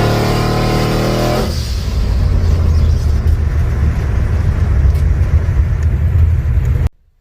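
Car engine under load with a steady high note that drops away about a second and a half in, leaving a heavy low rumble that cuts off abruptly near the end.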